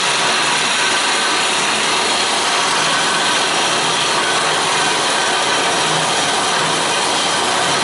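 Amada HA-400 horizontal band saw running steadily, its blade sawing through metal stock with an even, unbroken noise.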